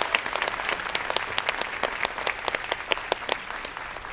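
Live theatre audience applauding, a dense patter of many hands clapping that slowly dies down.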